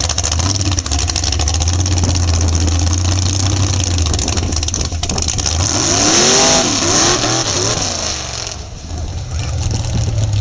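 A 468 cubic-inch big-block V8 in a lifted mud truck, running loud under throttle as it drives past. Its pitch rises and falls in a few revs at its loudest, about six seconds in. It then drops away as the truck pulls off.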